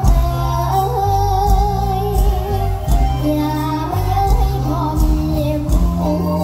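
A girl singing a mor lam song through a PA with a live band, over a heavy bass line that comes in right at the start.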